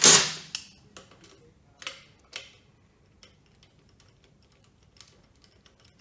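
A hand tool clatters loudly once right at the start, then a few sharp metal clicks and fainter ticks follow as hands work at the top of a Ducati twin's cylinder head.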